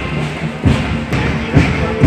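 March music with a bass drum beating steadily, about two beats a second, over a held low note.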